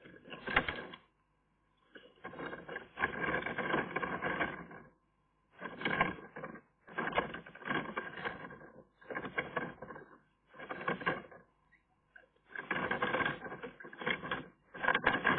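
Eurasian magpie working inside its domed twig nest, shifting in the mud-lined cup: close rustling and scratching of twigs and mud in a run of bursts, each a second or two long, with short pauses between.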